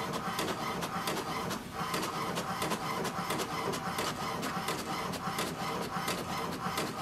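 HP DeskJet 4252e inkjet printer printing a page: a steady mechanical whir with rapid, evenly spaced ticking as the print carriage shuttles and the paper feeds out.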